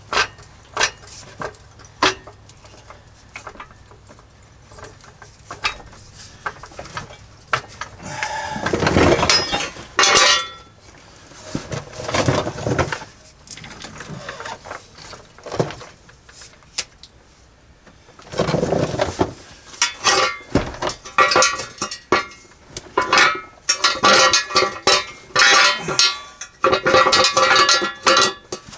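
Hand tools clinking and clanking on metal as bolts are worked loose on a truck's transfer case: scattered knocks and clicks, with a busy run of ringing metallic clanks in the last third.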